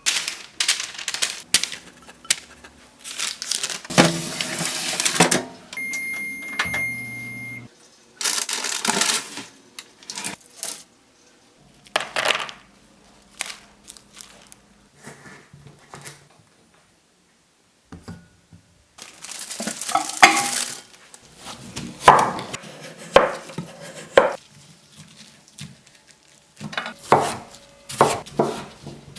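Kitchen cookware and cutlery being handled: repeated clinks, knocks and scrapes of utensils against pots and dishes, in separate bursts with short pauses. A short steady electronic tone with a low hum sounds about six seconds in.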